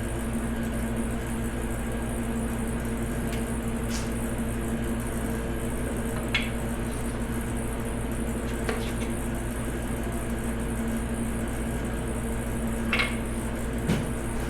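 Electric piston-ring gap grinder motor running with a steady hum while custom file-fit rings are trued to size. A few brief light scrapes and clicks come through, the loudest near the end, as the ring end touches the wheel and is handled.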